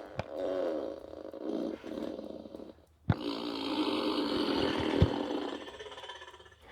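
Two long, buzzing cartoon fart sound effects, one after the other, the second starting abruptly after a short gap.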